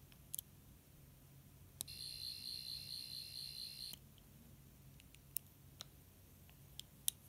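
Sonic screwdriver prop's electronic sound effect: a high warbling whine lasting about two seconds, starting and ending with a click, amid scattered small clicks from the device's buttons and parts being handled.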